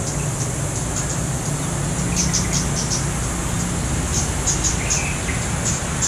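Female flowerpecker (cit keres) giving short, very high-pitched ticking calls in quick clusters about two seconds in and again past four seconds, with a couple of lower chirps. A steady insect buzz and a low hum run underneath.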